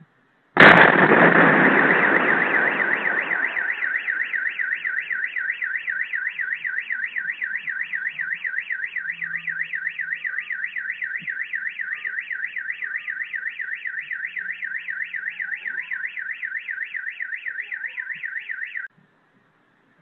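A single explosion goes off about half a second in: a sudden, very loud boom whose rumble dies away over a few seconds. It sets off a car alarm at once, a fast warbling electronic tone that keeps up steadily and cuts off suddenly near the end.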